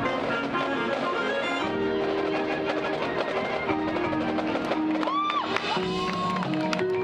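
Marching band playing its show: sustained wind and brass chords over busy percussion strikes from the drums and mallet pit. A short gliding tone bends up and back down about five seconds in.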